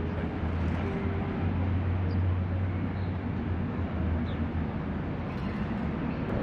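Steady city street noise: a constant low rumble of passing traffic under a general outdoor hum.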